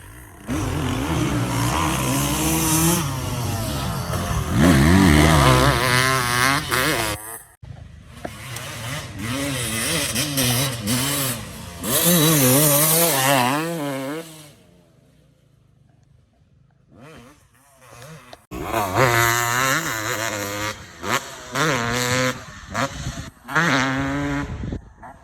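Single-cylinder two-stroke engine of a 1996 Honda CR250 dirt bike revving hard and falling back again and again as it is ridden, freshly rebuilt and being broken in. It drops away to a low level for a few seconds past the middle, then comes back at full revs.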